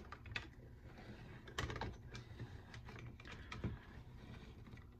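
Cheap band-type piston ring compressor being tightened with a hex key around a piston: faint, irregular ratchet clicks as the band squeezes the piston rings.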